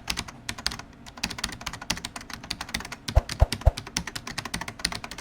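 Plastic Lego Technic pieces clicking and clattering as they are handled, many sharp irregular clicks a second, with three dull thumps a little past the middle.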